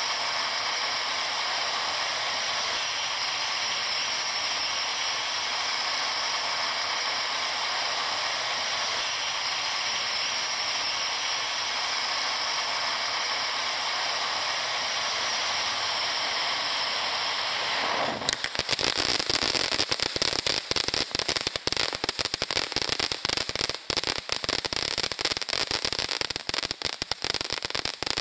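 Black Cat Fountastic fountain firework burning with a steady hissing spray of sparks. About 18 seconds in it switches abruptly to dense, rapid crackling as the crackling stars begin.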